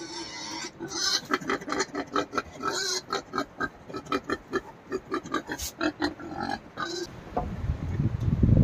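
A wild boar eating porridge: a quick run of short, repeated eating sounds, about four a second. Near the end a loud, low rushing noise rises over it.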